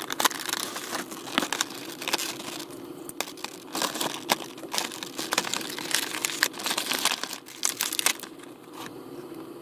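Clear plastic blister packaging crinkling and crackling as hands pull an action figure out of it, in a dense run of irregular sharp crackles.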